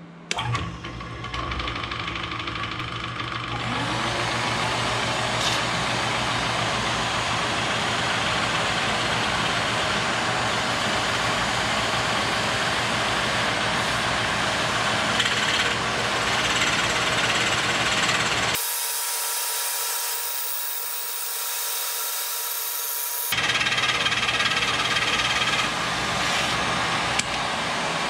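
Milling machine spindle motor starting about half a second in, then an end mill cutting a groove in red oak, with a shop vacuum hose at the cutter pulling away the chips: a steady loud hiss over the motor hum. The low hum cuts out abruptly for a few seconds and then returns.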